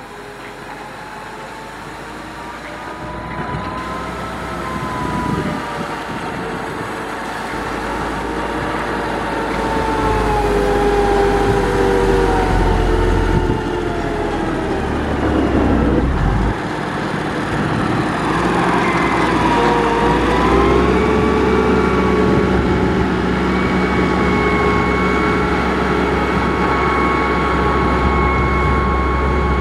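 Diesel engine of a heavy road-construction machine running under load, its loudness building over the first several seconds and its pitch shifting slowly up and down as it works.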